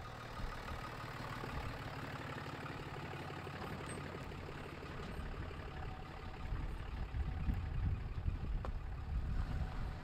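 Diesel Ram 2500 pickup's Cummins engine running as the truck drives off across a dirt campsite, getting louder about halfway through as it pulls past and away.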